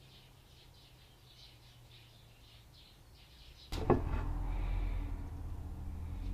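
Faint, repeated bird-like chirps over a low hum. About two-thirds of the way through, a sudden sharp knock is followed by a steady, louder low rumble.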